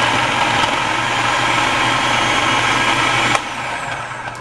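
Food processor running, its blade chopping up soft avocado halves, then switched off about three seconds in, the sound falling away as it stops.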